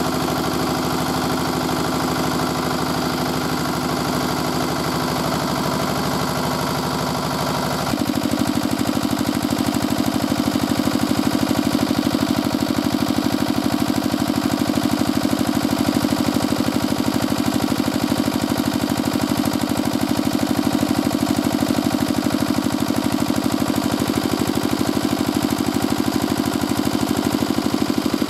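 Petter AVA1 single-cylinder diesel engine running steadily, belt-driving a Dale Panther 3 kW generator. The sound becomes louder and closer about eight seconds in.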